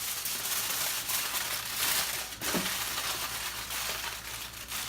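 Tony Chachere's Creole seasoning being shaken from its shaker onto fish: a continuous gritty, hissing rattle with irregular surges.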